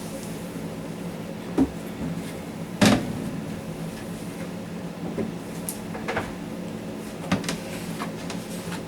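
Scattered knocks and clicks of refrigerator shelves and drawers being handled while they are dried, the loudest about three seconds in, over a steady low hum.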